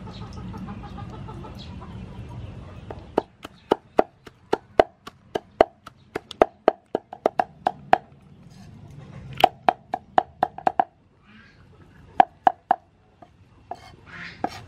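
Cleaver chopping red chili peppers into a paste on a round wooden chopping block: quick runs of sharp knocks, each with a short ring, starting about three seconds in and coming in bursts with short pauses.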